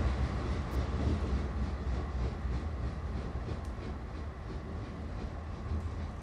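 Tram running, heard from inside the car: a steady low rumble of wheels and motor with a few faint clicks, easing off slightly near the end.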